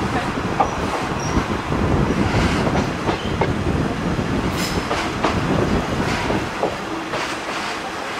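Inside a KiHa 200 diesel railcar running along the line: a steady rumble of wheels and running gear, with scattered clicks from the rail joints and a few faint, brief wheel squeals.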